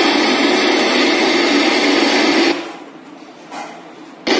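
Aroma Bluetooth speaker in FM radio mode giving out loud static hiss from an untuned FM band, the noise between stations. It breaks off after about two and a half seconds and starts again near the end.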